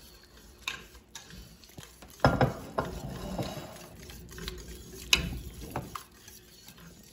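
Wire whisk stirring grated cheese into a thick milk-and-flour sauce in a stainless steel pot, scraping round the pot with several sharp clinks of the whisk against its side, the loudest a little over two seconds in.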